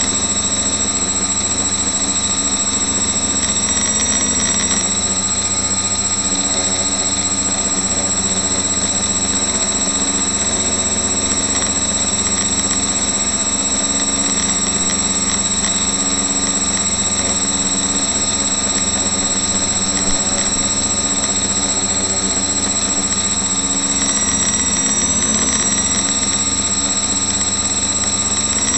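Quadcopter's four brushless outrunner motors (Suppo 2212 1200kv) spinning 8x4.5 GemFan propellers, recorded by a camera mounted directly on the frame: a loud, steady buzz with a high whine. The pitch shifts a little with throttle about four seconds in and again near the end.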